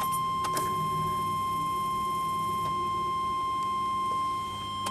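2001 Ford Ranger's warning chime (the "dinger") sounding as a steady high tone with the key switched on, over a low steady hum and a few light clicks.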